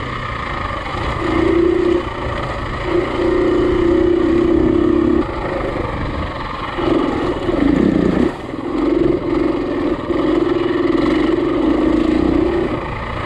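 Single-cylinder four-stroke dirt bike engine running under load, its revs rising and falling with the throttle. It eases off and picks up again a couple of times, most clearly about eight seconds in.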